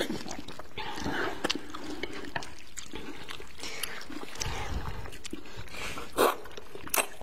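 People eating with their mouths close to the microphone: slurping and chewing wide buckwheat noodle sheets and meat, with wet smacking mouth noises and a couple of sharp clicks near the end.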